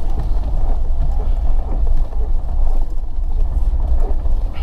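Steady low rumble of a car driving over a rough, wet unpaved mountain road, heard from inside the cabin: engine and tyre noise.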